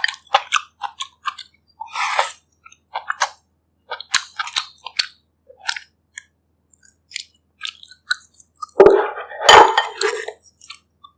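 Close-miked chewing of food, made up of short wet mouth clicks scattered throughout, with a louder, longer stretch of eating noise about nine seconds in.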